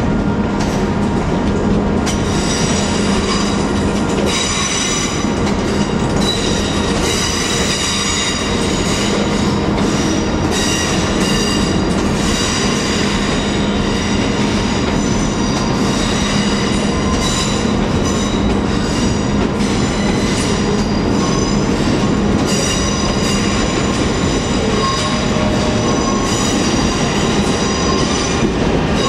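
Train wheels squealing on curved track through the station: shifting high-pitched squeals that come and go over a steady low hum and rumble of the moving train.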